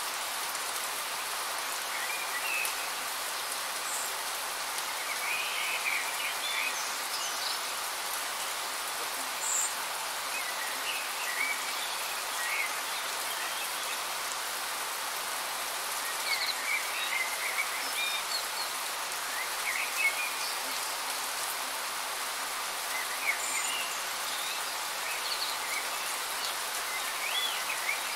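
Steady rain falling, with short bird chirps scattered over it now and then.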